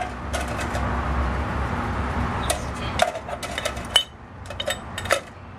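Small metal carburetor parts clinking and knocking as they are set into a parts cleaner's basket, with a run of short, sharp clinks in the second half.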